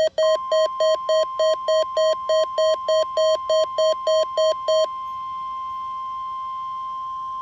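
NOAA Weather Radio 1050 Hz warning alarm tone, one steady high tone, with a weather alert receiver's buzzer beeping about four times a second over it until the beeping stops about five seconds in.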